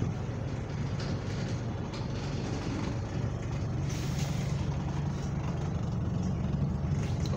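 Double-decker bus engine droning steadily under way, heard from inside the bus, with a short hiss about four seconds in. The bus has a burst exhaust, a fault the rider takes as the funny noise that means something is wrong with the bus.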